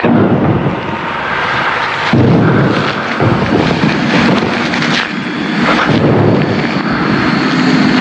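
Air-raid sound effect: warplane engines and bomb explosions in a dense rumbling din. It starts abruptly and swells with heavier blasts about two seconds in and again around three and six seconds.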